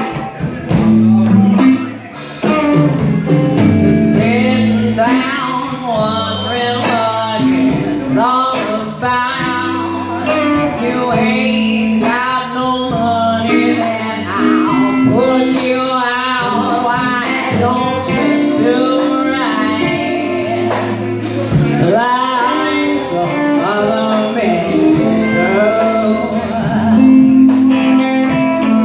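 Live blues band playing: electric guitars, bass and drums, with a woman singing the lead vocal.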